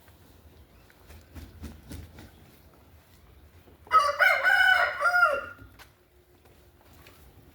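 A rooster crows once, about four seconds in: a single loud crow of nearly two seconds that drops in pitch at the end. Faint rustling and small knocks come before it.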